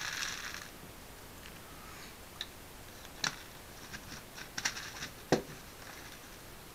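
Plastic soda bottle and fittings being handled: a crinkling rustle of the plastic at the start, then scattered light clicks and taps, with one sharper knock about five seconds in.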